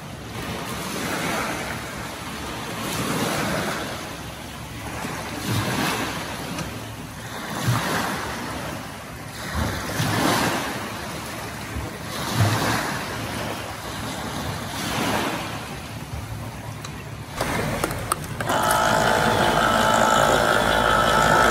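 Small waves washing onto a shingle beach in rhythmic swells about every two seconds. Near the end, after a break, an electric can opener's motor starts and runs with a steady hum.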